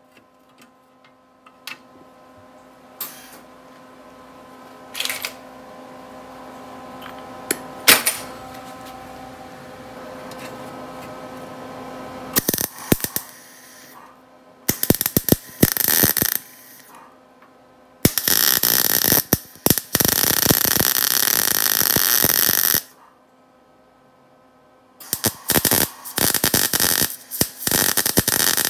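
MIG welder arcing in bursts while plug-welding a steel accelerator pedal bracket through its holes: two short tacks, then one steady bead of about five seconds near the middle, then a run of short bursts near the end. Before the welding starts, scattered clicks sound over a faint steady hum.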